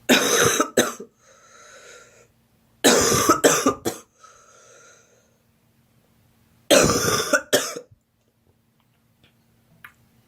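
A girl coughing in three bouts of two or three coughs each, a few seconds apart, with an audible breath after each of the first two bouts.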